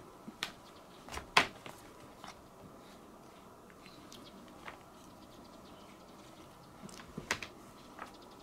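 Scattered light clicks and taps from the plastic laundry basket as the cat lying in it shifts and is handled. The loudest cluster comes about a second in and another near the end, over a faint steady hiss.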